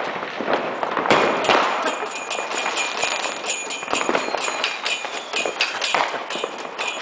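Weco Big Crackles (Thunderbolt) firework crackling: a dense, irregular run of sharp pops that thickens about a second in.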